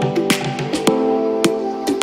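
Background music: sustained chords over a steady beat, with a sharp hit a little under twice a second.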